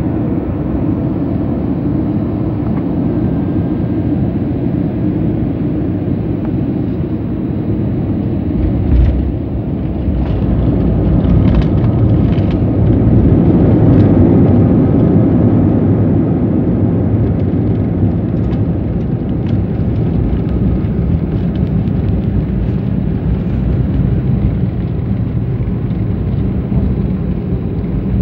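Jet airliner landing, heard from the passenger cabin: steady rumble of engines and airflow, a short jolt about nine seconds in as the wheels touch down, then a swell of engine noise peaking a few seconds later as the plane slows on the runway, easing back to a steady rumble.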